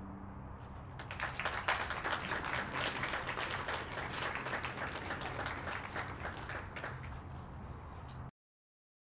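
Audience applauding as the music ends; the clapping starts about a second in and cuts off abruptly near the end.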